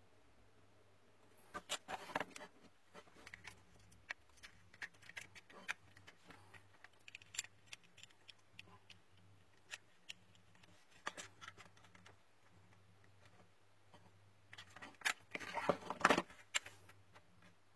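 Small hand tools clicking and scraping against a small plastic housing while a tiny micro USB charging port is pried loose, with busier bursts of clicking near the start and near the end. A faint steady low electrical hum runs underneath.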